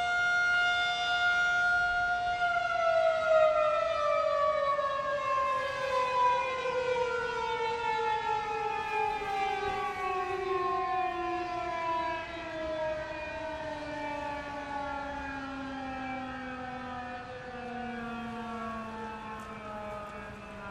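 Federal Signal 2001-SRN outdoor warning siren holding its steady alert tone, then winding down. About two and a half seconds in, the pitch starts to fall and keeps sliding slowly lower to the end, as the siren coasts down after the alert signal.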